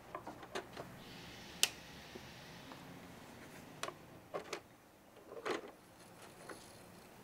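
Handling noise as a vinyl record is set onto a portable turntable's platter: faint, scattered clicks and light knocks, with one sharper click about a second and a half in.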